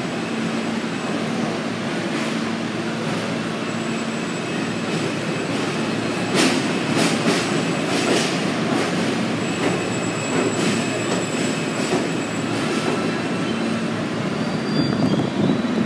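R160 New York City subway train pulling slowly into a terminal station, running with a steady rumble and a faint steady whine. From about six seconds in, its wheels clack on the track at irregular intervals.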